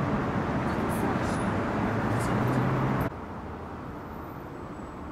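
City street traffic noise with a steady engine hum, which cuts off abruptly about three seconds in to a quieter street background.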